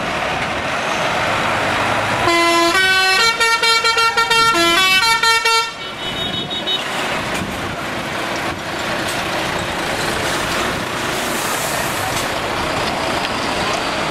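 A truck's musical air horn plays a tune of quick stepped notes for about three and a half seconds, starting about two seconds in; it is the loudest sound. Under it and afterwards, heavy trucks and vans drive past with a steady engine and tyre noise.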